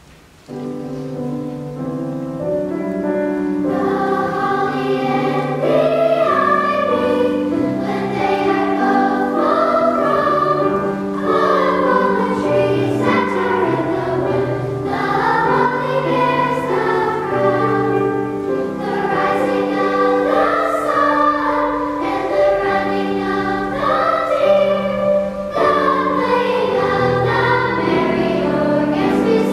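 Girls' choir singing in parts with piano accompaniment. The music starts about half a second in.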